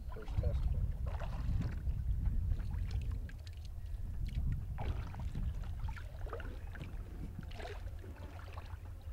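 Water splashing and sloshing as a person wades in shallow water and climbs into a canoe, with short knocks against the hull, over a steady low wind rumble on the microphone.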